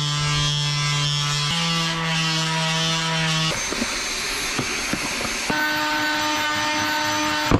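Electric sander buzzing steadily as it sands a fibreglass-and-epoxy part, its pitch shifting a little partway through. About three and a half seconds in it cuts off and a cordless stick vacuum takes over with a high motor whine, sucking up the fibreglass dust.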